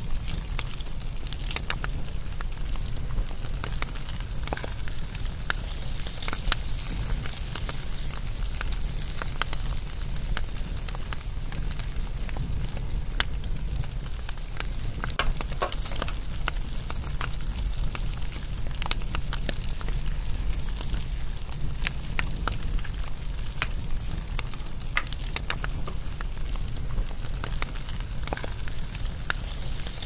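Wood fire crackling: a steady low rumble with frequent irregular sharp pops and snaps.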